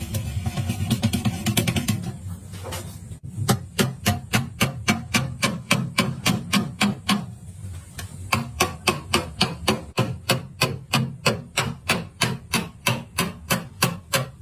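Woodworking hand-tool work on wood: about three seconds of rubbing strokes, then a fast, even run of knocks or taps, about three or four a second, over a steady low hum.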